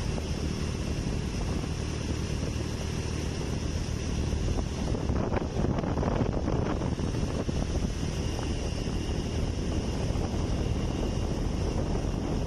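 Honda motorcycle engine running at a steady cruise, with wind rushing over the microphone. The wind noise grows louder for a couple of seconds about halfway through.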